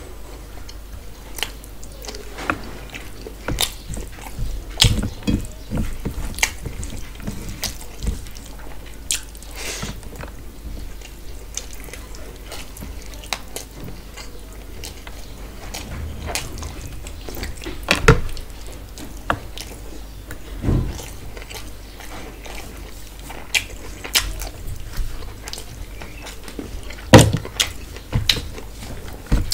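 Close-up eating sounds: wet chewing and lip smacks with scattered sharp clicks, as rice and mutton curry are mixed by hand and eaten with the fingers. A faint low hum runs underneath.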